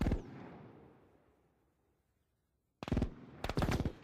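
Gunfire: one loud shot with a long echoing tail that fades over about two seconds, then a short burst of shots about three seconds in, followed by a faster run of rapid automatic fire.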